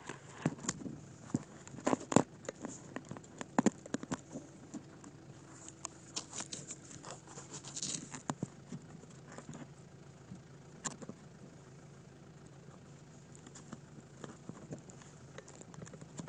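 Rustling, scraping and clicking of a camera rubbing against a jacket sleeve, busiest in the first ten seconds, over a steady low hum of an idling engine.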